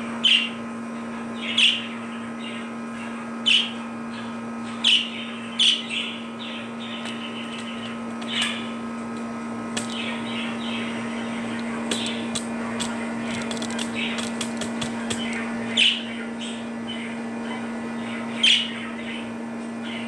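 Budgerigars chirping: loud single contact calls every second or few seconds, with softer warbling chatter between them and a quick run of clicks about two thirds of the way through.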